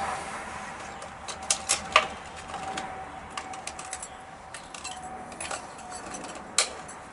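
Scattered light clicks and taps of small brake caliper parts being handled on a workbench, with a quick cluster about a second in and one sharper click near the end.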